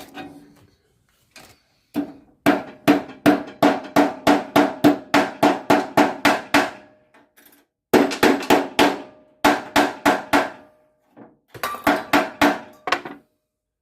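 A hammer strikes a steel hub-nut lock washer to flatten it. The blows come in three quick runs of ringing metal-on-metal strikes, about four a second, the first run the longest.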